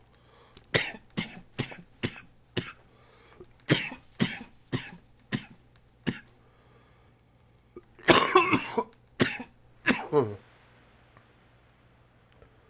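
A man coughing with a chest cold: runs of short coughs, a longer harsh coughing fit about eight seconds in, then two more coughs, stopping about ten and a half seconds in.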